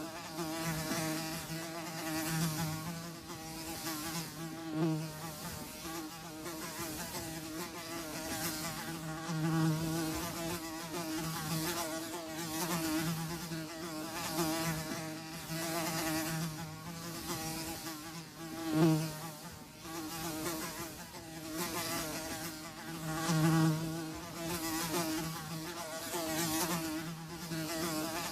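Houseflies buzzing, a steady drone that swells and fades as the flies pass closer and farther, with one brief loud close pass about two-thirds of the way through.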